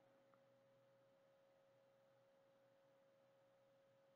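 Near silence, with one faint, steady high tone held at a single pitch.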